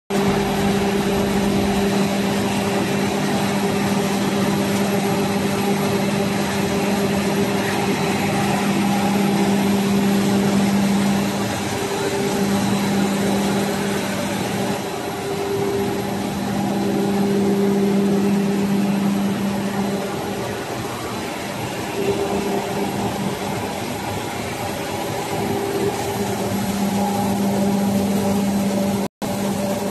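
Paper-with-foil coextrusion lamination machine running: a steady machine noise with a low hum that swells and fades every few seconds. The sound cuts out briefly near the end.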